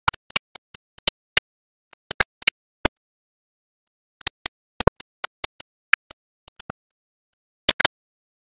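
Automatic pin insertion machine clicking as its head presses pins into circuit boards: sharp, irregular clicks and snaps, some in quick pairs or clusters, with silence between.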